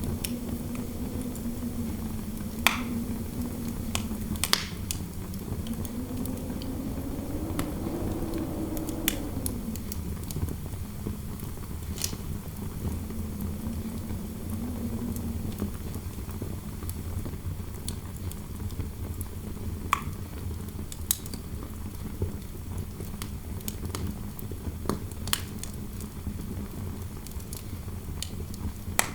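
Fireplace fire crackling with scattered sharp pops over a low rumble, while a wind howl through the room wavers in pitch, rises about eight seconds in, then sinks and fades out around the middle.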